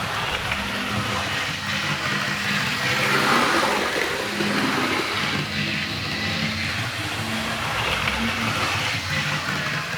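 Model diesel locomotive running at full speed on a model railway: the small electric motor whirring and the wheels rolling on the rails, swelling and fading slightly as it passes along the track.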